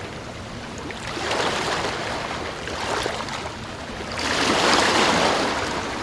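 Ocean waves rushing in, surging twice, the second surge stronger about four seconds in, then easing off.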